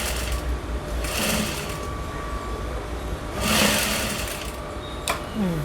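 Sewing machine running steadily, stitching a folded bias strip onto a blouse neckline, with three short swishes over it.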